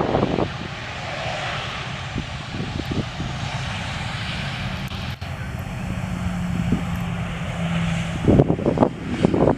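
Jet airliner's engines running steadily, a broad even rush over a low rumble, with a steady low tone joining about six seconds in. Wind buffets the microphone at the start and again near the end.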